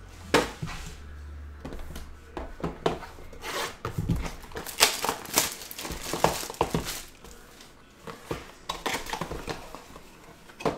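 Trading cards and their plastic wrapping being handled: irregular crinkling, rustling and light taps, loudest and busiest in the middle.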